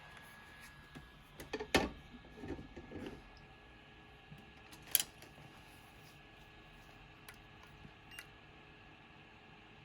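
A few light clicks and knocks from handling a phone and small repair tools on a workbench, with one sharper click about five seconds in, over quiet room tone.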